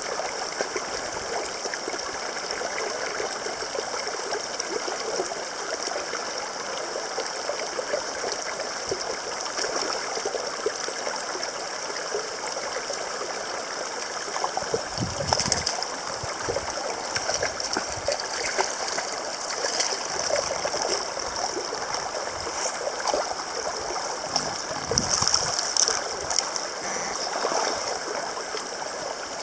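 Steady rush of a rocky mountain stream. Splashes come about halfway through and again near the end as a hooked rainbow trout jumps and thrashes at the surface during the fight.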